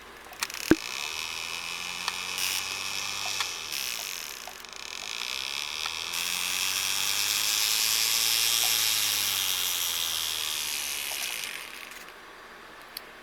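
Half round hand file rasping against a sterling silver ring band, shaping it down, with a sharp click just under a second in and a brief lull about four seconds in; the rasping stops near the end.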